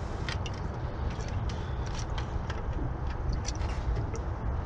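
Hino truck's diesel engine running at idle: a steady low rumble with scattered light ticks, mixed with wind on the microphone.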